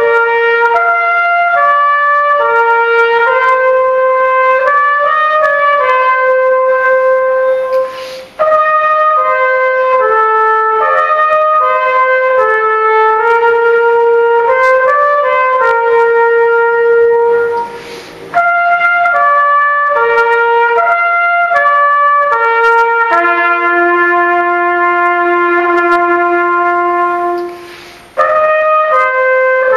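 Solo trumpet playing a slow melody, one held note at a time, with a brief pause about every ten seconds between phrases.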